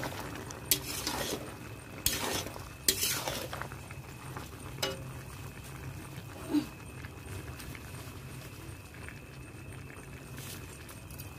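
Metal spatula scraping and clinking against an aluminium kadai as a pumpkin, potato and spinach curry is stirred, with several strokes in the first seven seconds and fewer after. A faint sizzle of the frying vegetables sits underneath.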